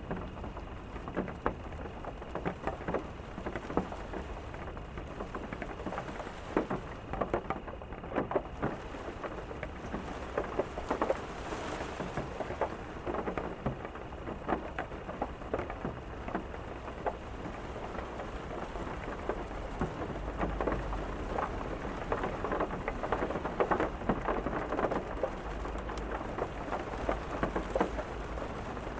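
Steady rain with many close drops striking a hard surface, and a low rumble of thunder underneath that swells about two-thirds of the way through.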